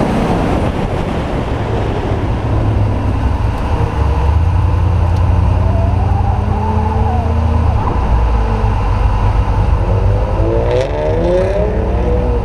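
Car engine and exhaust heard from a camera on the hood, with wind rush over the microphone as the car comes off the autocross course. The engine settles into a steadier, lower note after a few seconds as the car slows, and its pitch rises again near the end.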